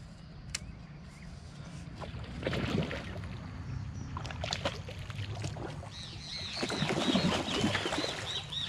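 Water splashing and sloshing in rough bursts as a big hooked tambacu is fought at the bank. In the last few seconds a bird chirps in a quick run of short repeated notes.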